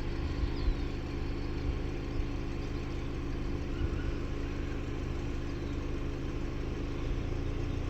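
An engine idling steadily: a low, even hum that holds the same pitch throughout.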